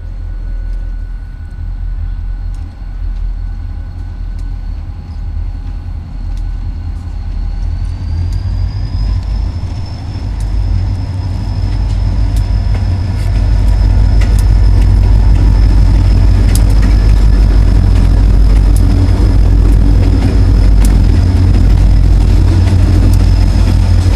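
Diesel freight locomotive approaching and passing close by, its deep engine sound growing steadily louder. About a third of the way in, a high whine and the engine's tones rise in pitch together, as the engine speeds up.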